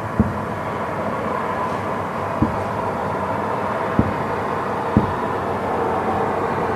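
Fireworks salute shells bursting as four dull booms, a second or two apart, over a steady background rumble.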